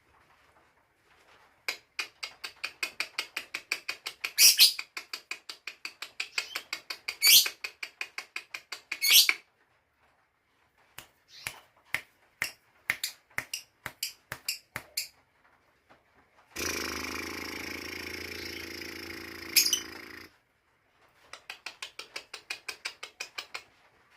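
Lovebird chattering in runs of rapid ticks, about six a second, broken by loud shrill calls, three of them in the first half. In the second half a steady hiss with a low hum runs for about four seconds, with one more shrill call near its end.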